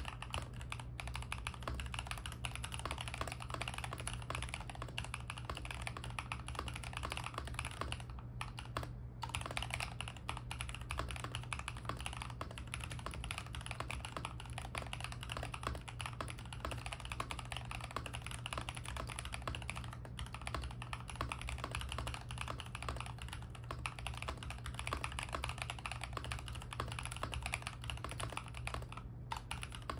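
Fast, continuous typing on a mechanical keyboard: a dense stream of keystroke clacks, with a couple of brief pauses about eight seconds in and another near the end.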